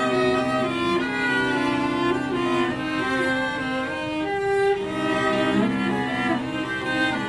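A cello quartet, four cellos bowing sustained, overlapping notes together. About four seconds in, the texture thins briefly to one held higher note before the other parts come back in.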